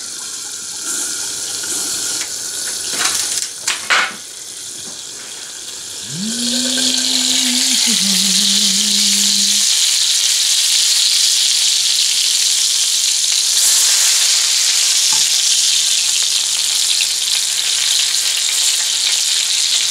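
Pack rat frying in grease in a cast-iron skillet: a steady sizzle, muffled under a glass lid at first, then much louder from about six seconds in once the lid is off. The sizzling is the water in the meat cooking out into the hot grease. A couple of knocks come at three to four seconds, and a steady low tone sounds for a few seconds around the time the sizzle swells.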